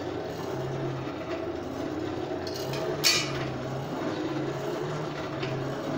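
Blacksmith's coal forge with a large fire burning under its air blast: a steady rushing noise with a low hum that comes and goes in short spells, and one sharp snap about halfway through.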